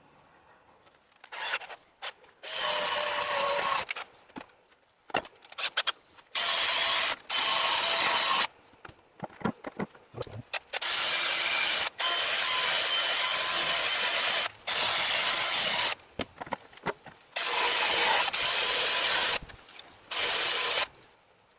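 A handheld power tool run in about eight bursts of one to three seconds each, with a rough, grinding or scraping noise that starts and stops abruptly.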